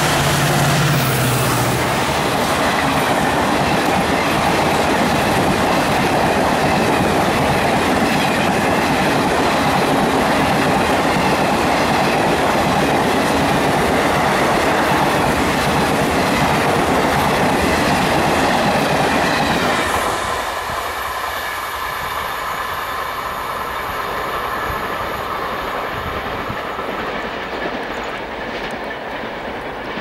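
A WDP-4B diesel locomotive's two-stroke EMD engine passes close at speed in the first couple of seconds. Then a long rake of passenger coaches clatters past, wheels beating over the rail joints. The clatter eases about two-thirds of the way in as the last coach goes by, and the train's noise fades into the distance.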